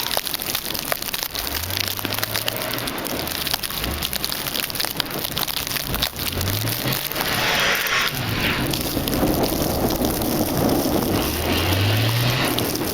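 Constant crackling of wind-driven snow striking a plastic Ziplock bag wrapped over the camera. Under it, a car engine rises in pitch a few times, typical of a car struggling to move in deep snow.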